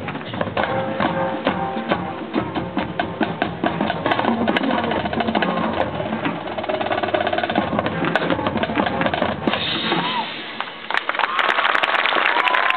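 High school marching band playing, its drumline of snares, tenor drums and bass drums driving a steady rhythm under the horns. The music stops about ten seconds in, and applause from the stands follows.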